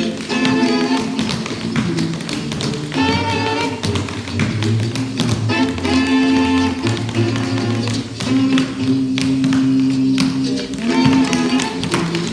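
Tap shoes striking a stage floor in quick, irregular clicks over loud recorded music playing throughout.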